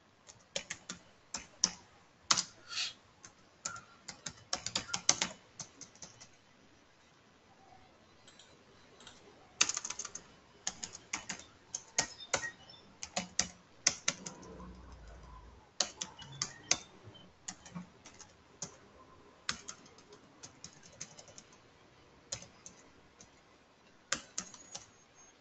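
Computer keyboard typing: irregular bursts of keystrokes with short pauses between them, the longest a few seconds from about six seconds in.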